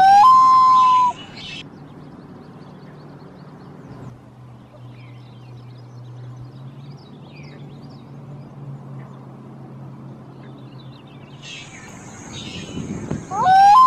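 A common loon gives one short loud call near the start, rising and then holding one pitch for under a second before breaking off. Faint chirps of small birds follow over a low background.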